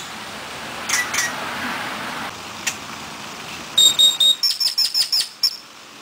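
Grackles calling: a couple of short high notes about a second in, then a high whistle followed by a fast run of sharp ticking notes, about six a second, that stops half a second before the end.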